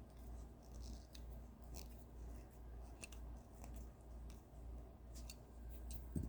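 Faint, scattered light clicks and ticks from a small die-cast model truck being handled, with a soft thump about six seconds in, over a low steady hum.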